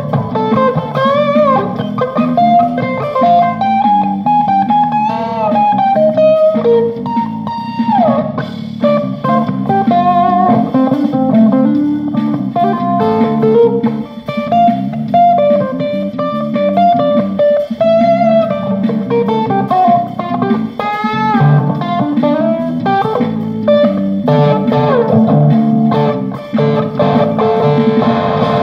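Electric guitar jamming: a single-note lead line with bent, gliding notes over a steady lower accompaniment.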